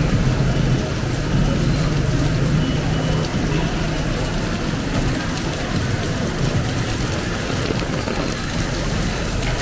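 Heavy rain falling on a street, with a motor vehicle's engine running close by; the engine hum fades after about three seconds.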